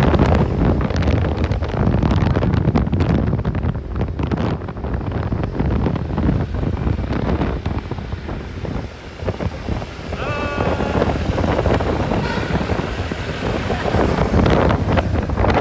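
Wind buffeting the microphone over the steady road and engine noise of a moving bus. A short pitched tone sounds briefly about ten seconds in.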